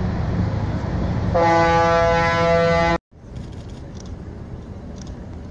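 A ship's horn gives one long, steady blast about a second in, over a low engine rumble. The sound cuts off abruptly about three seconds in, leaving a much quieter open-air background.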